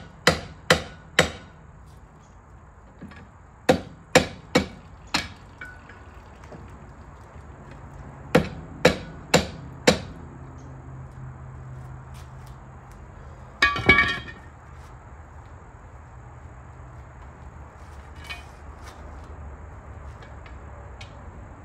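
Hammer blows on a semi truck's wheel hub seal, struck in groups of three or four at about two a second with pauses between, the blows moved around the seal rather than landing on one spot. Near the middle comes a short ringing metallic clatter, and a low steady hum runs underneath.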